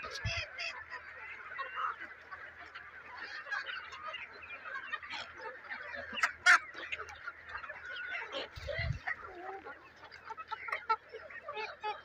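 A large flock of chickens clucking and calling over one another, many short overlapping calls with no pause. A sharp click stands out about six and a half seconds in, and a short low thump comes near nine seconds in.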